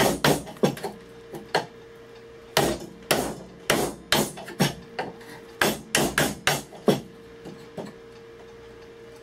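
A woodworking chisel being struck to chop a mortise in a hardwood block: sharp blows in quick bunches of two to five, with short pauses between, stopping about eight seconds in.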